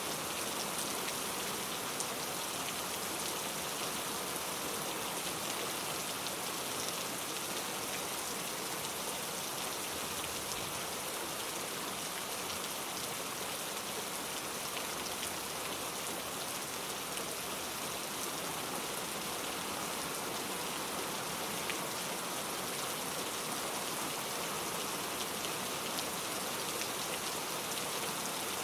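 Heavy rain falling steadily, an even hiss of rain on a surface with faint scattered drop ticks.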